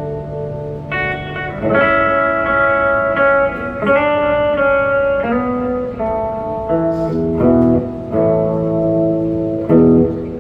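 Electric guitar played through an amplifier: an instrumental passage of ringing chords and single notes that change every second or so.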